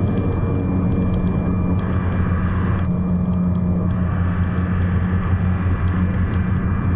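Truck engine and road noise heard inside the cab: a steady low drone while cruising at highway speed.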